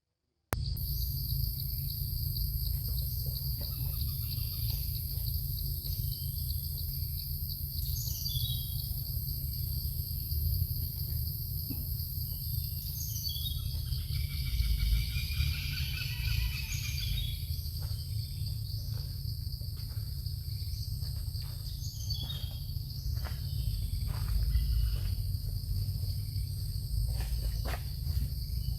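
Insects trilling steadily in a high, even pulse. Birds chirp briefly about a third of the way through and again around the middle, and a low rumble runs underneath.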